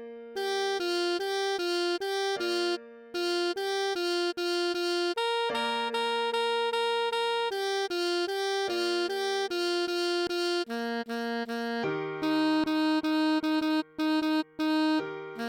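Computer-rendered instrumental playback of a melody for alto sax, played at half speed: a quick run of short, evenly paced notes over held lower notes, with the lower part changing a little before the end.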